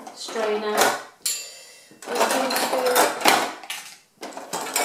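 Rubbing and scraping on a plastic cutlery drawer tray as it is cleaned out, in two spells, with a short squeak of rubbing on plastic near the start.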